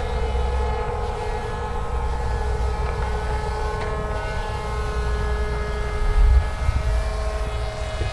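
RC model plane's motor and propeller whining steadily overhead, the pitch drifting slowly up and down as it flies, with low wind rumble on the microphone that is loudest about six seconds in.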